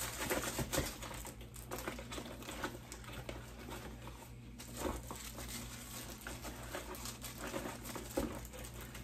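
Hands handling a small cardboard box and its plastic-wrapped contents: irregular rustling and crinkling of packaging with scattered light clicks and taps.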